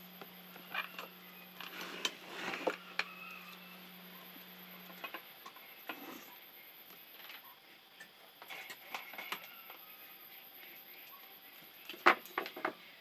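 Electric stand fan's motor humming steadily, then cutting out about five seconds in as the fan is switched off. Scattered clicks and knocks of handling, with a sharp cluster of clicks near the end.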